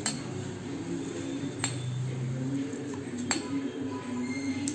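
A teaspoon clinking against the pot three times, about a second and a half apart, as spoonfuls of sugar are tipped into the heated water.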